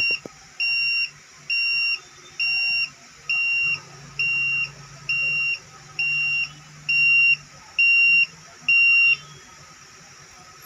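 The buzzer of an Arduino fire and smoke detector sounding its alarm: a steady run of about eleven high-pitched beeps, each under half a second and a little under a second apart, stopping about nine seconds in.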